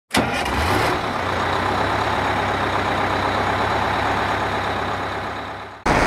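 A large vehicle engine starts up with a sudden surge, then runs steadily with a low hum under a broad rushing noise, fading out near the end.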